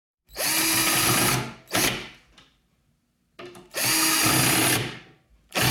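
Cordless drill/driver driving in the screws of a new door latch: two runs of about a second each with a steady motor whine, and two short trigger bursts.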